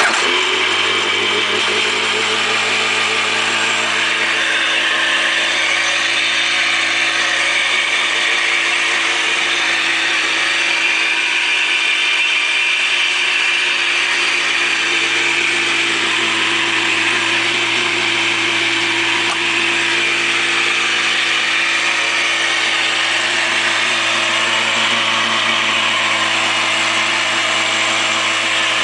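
Arctic Cat Tigershark Daytona 770 jet ski engine running at a steady idle, with a busy mechanical rattle over the engine note.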